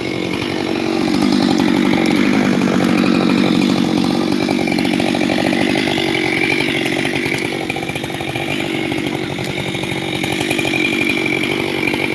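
Husqvarna chainsaw running at high revs, growing louder about a second in and then holding steady with small rises and dips in pitch.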